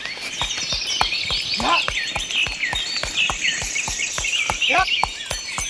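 Many small birds chirping and twittering, over a fast run of light clicks.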